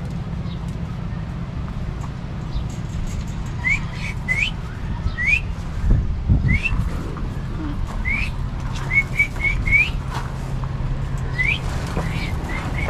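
Small parrots giving short rising whistled chirps, about a dozen in all, starting a few seconds in, with a quick run of four or five near the middle. A steady low hum runs underneath.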